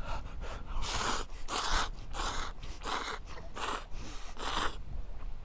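A person slurping noodles, a run of short, airy slurps about two a second.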